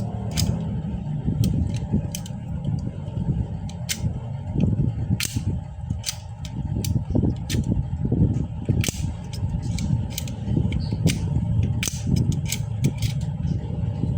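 Stapler being worked over and over, a string of sharp, irregular snapping clicks, over a steady low rumble.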